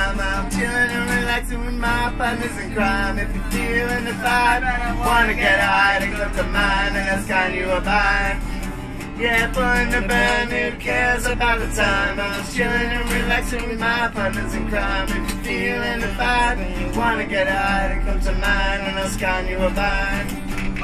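Two acoustic guitars strummed while men sing along, over a steady low hum.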